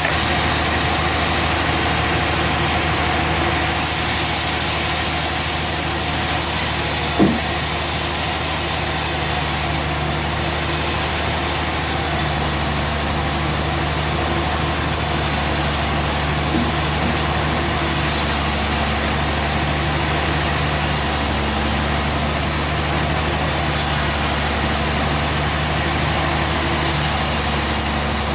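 Sawmill engine running steadily at a constant speed, with one brief sharp knock about seven seconds in.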